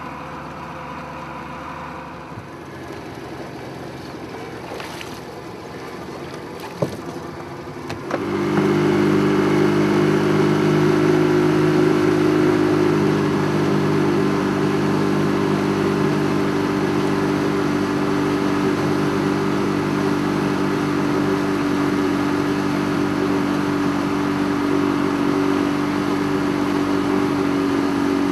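Small outboard motor on a flat-bottomed boat, running low for the first several seconds. A single sharp click comes shortly before it is throttled up about eight seconds in, after which it runs loud and steady under way.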